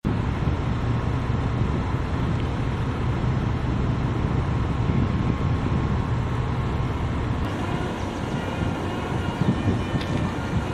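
Wind buffeting the microphone over a steady low rumble, with a few faint thin high tones joining about two-thirds of the way through.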